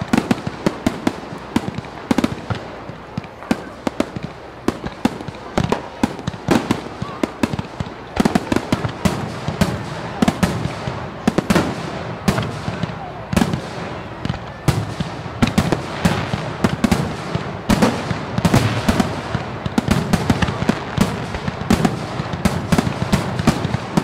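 Fireworks display: a rapid, continuous string of sharp bangs and crackling bursts, growing denser and louder from about eight seconds in.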